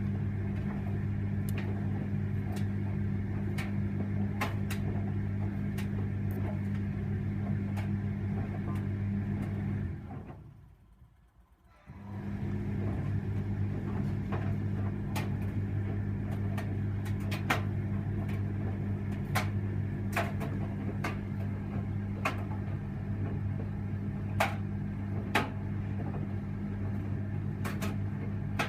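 An Electra vented tumble dryer running: a steady motor hum with scattered clicks and knocks from the drum. About ten seconds in it winds down to near quiet, then starts up again sharply about two seconds later and runs on steadily.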